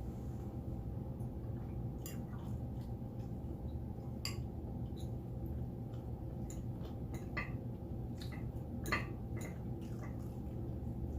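Eating utensil clicking against a dish, a scattering of sharp clicks over a steady low hum, the loudest click near the end.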